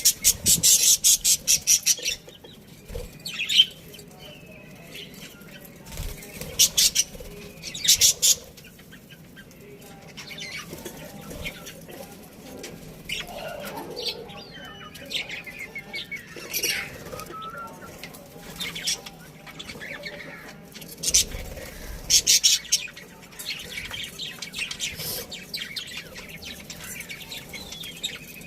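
A colony of budgerigars chirping and chattering, with loud bursts of rapid, fast-repeating chirps near the start, around six to eight seconds in and again about two-thirds of the way through, and softer warbling calls in between.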